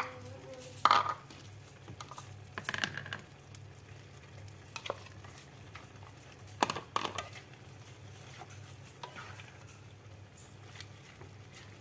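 A spatula stirring and turning fern shoots into coconut-milk gravy in a pot, with soft scraping and a few sharp knocks of the utensil against the pot. The loudest knocks come about a second in and near seven seconds.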